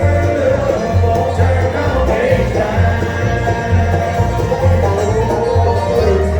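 Live bluegrass band playing, with banjo picking over a wavering lead melody and a steady pulse of bass notes.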